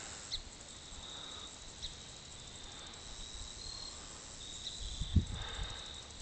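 Faint outdoor ambience with an insect's thin, high trill coming and going, a couple of small clicks, and a brief low bump about five seconds in.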